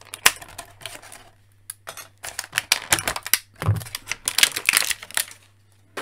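Thin clear plastic wrapping crinkling and crackling as it is handled and pulled off a small plastic toy part, in two stretches with a short lull about a second in.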